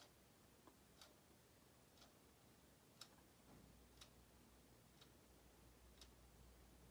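Record-album wall clock ticking faintly, one short click a second.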